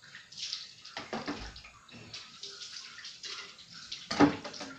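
Water splashing and sloshing in irregular bursts as food is washed by hand in a kitchen sink basin, with the loudest splash about four seconds in.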